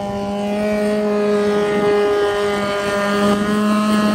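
Straight-piped Toyota 4A-GE four-cylinder twin-cam engine on a racing longtail boat running hard as the boat speeds past. It gives one steady, high-pitched engine note that grows louder over the first second and drops slightly in pitch near the end.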